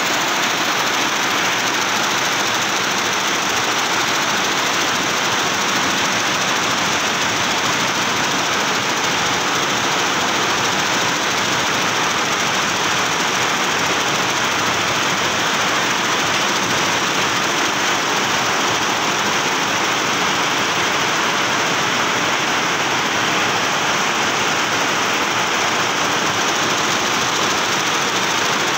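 Multi-head computerized embroidery machine running, its row of needle heads stitching together in a steady, unbroken mechanical noise.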